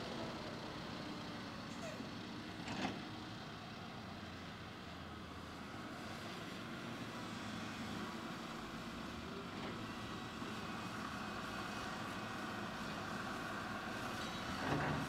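Komatsu PC220 excavator's diesel engine running steadily under load as the machine swings and dumps dirt. Two sharp knocks break through it, one about three seconds in and a louder one near the end.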